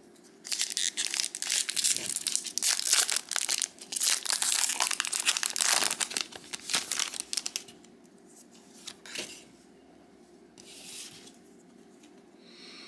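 Plastic-foil Lorcana booster pack wrapper being torn open and crinkled in the hands: a dense crackling for about seven seconds, then a few softer rustles.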